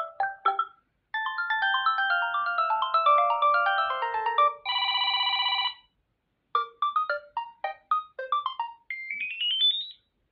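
Samsung Galaxy A26 ringtones playing one after another, short electronic melodies of bright plucked and chime-like notes with brief gaps between them. One ends in a held chord, and the last climbs in a quick rising run of notes.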